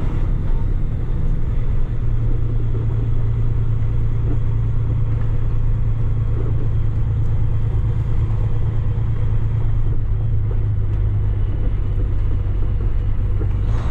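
Kenworth T880 dump truck's diesel engine running steadily under way, heard from inside the cab as a steady low drone.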